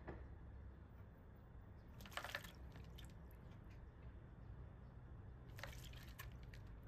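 Monk parakeet splashing in bathwater: two short bursts of rapid splashing, one about two seconds in and another near the end.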